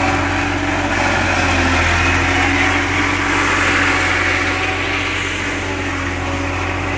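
Maize silage machine running steadily, a continuous engine-driven hum with a steady low tone.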